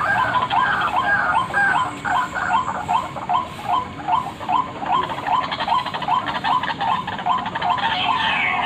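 White-breasted waterhen (ruak-ruak) lure call: a continuous run of short, hooked notes repeated about two to three times a second.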